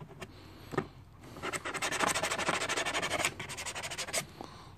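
Orange plastic scraper scraping dried super glue residue off a hard plastic case in quick, repeated strokes, plastic on plastic. The strokes are faint at first, come thick from about a second and a half in, and pause briefly past the middle.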